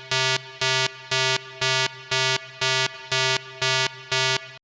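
A buzzy electronic tone pulsing on and off about twice a second in an even beat, which cuts off abruptly near the end.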